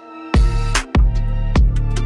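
Background music with a steady electronic beat: regular drum hits over sustained bass and synth tones.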